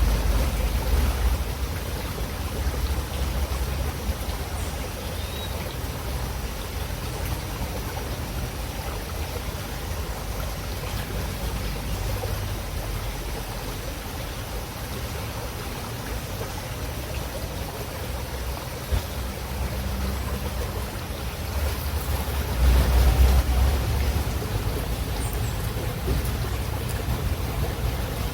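River water running steadily, an even rushing over a low rumble that swells near the start and again about three-quarters of the way through.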